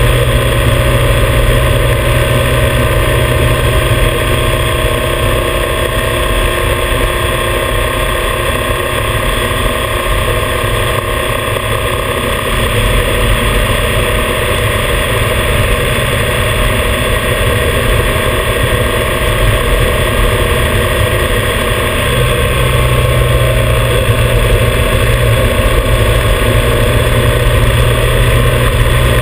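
Motorcycle running steadily at cruising speed, its engine mixed with steady wind and road noise on a camera mounted by the front fender.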